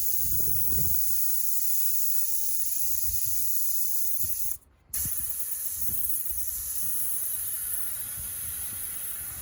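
Air hissing steadily out of a bicycle's rear tyre through the opened valve as the tyre is let down. The hiss breaks off briefly about halfway and fades a little toward the end.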